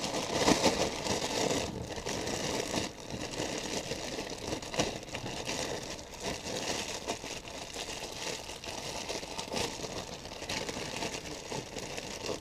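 A clear zip-top plastic bag crinkling and rustling in the hands as soft plastic lures are shaken and pulled out of it, in a continuous run of small irregular crackles that is busiest in the first couple of seconds.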